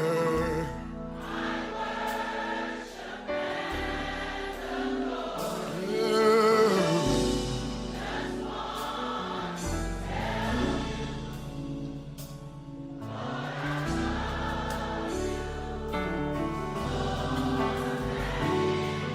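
Live gospel choir singing with a band, sustained voices with vibrato over keys and bass.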